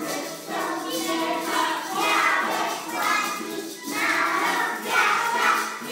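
A group of young children singing a song together, with musical accompaniment, in short phrases of about a second each.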